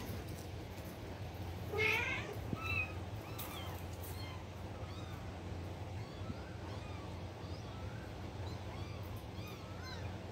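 Tabby kitten mewing over and over in short, high-pitched cries, about one or two a second, with one louder, longer cry about two seconds in.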